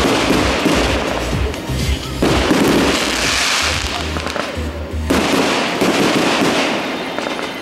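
Aerial fireworks bursting and crackling in dense, continuous volleys, with music playing underneath.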